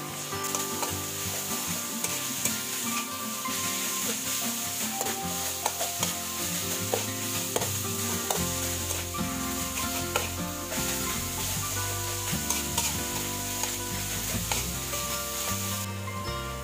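Ground pork sizzling in hot oil in a steel wok, stirred and broken up with a metal spatula that scrapes and clicks against the pan. The sizzle starts just after the meat goes in and drops off near the end.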